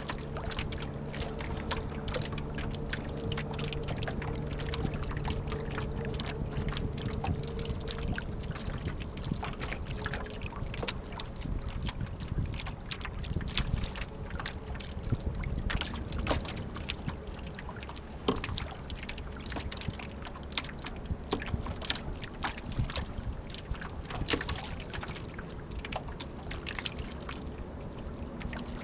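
Lake water splashing and slapping against the hull of an 11 ft Snark sailboat under way, with many small sharp splashes over a steady rush of water and wind. A low steady hum is also heard, fading out about eight seconds in.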